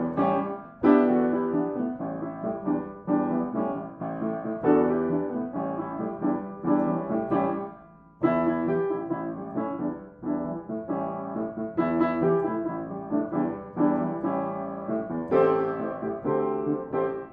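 Background music played on piano: a steady run of struck notes that ring and fade.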